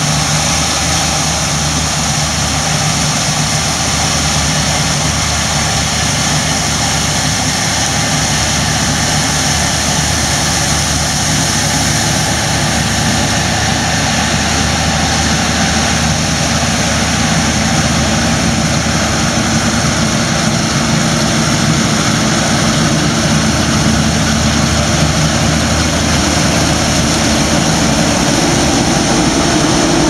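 Claas Lexion combine harvester at work cutting rapeseed: its engine and threshing machinery run steadily, a low engine tone under a broad high hiss, growing slightly louder near the end.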